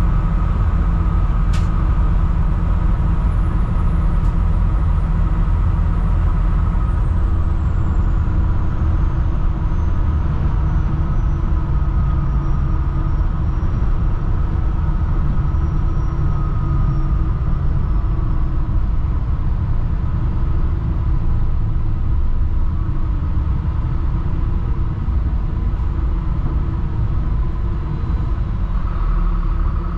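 Mercedes-Benz MBE diesel engine of a 2007 Thomas HDX school bus running steadily with a deep, even drone. A faint high whine slowly falls in pitch through the middle, and there are two faint clicks near the start.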